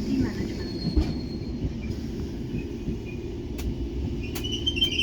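London Underground 1972 Stock train running with a steady low rumble and a few sharp clicks, and a brief high squeal near the end.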